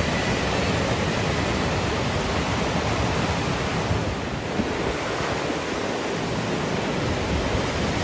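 Steady rushing noise of ocean surf breaking, with a little wind on the microphone.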